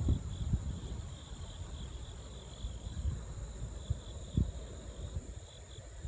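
Wind buffeting the microphone in gusts, with a thump near the start and another about four and a half seconds in, over a steady chorus of insects trilling.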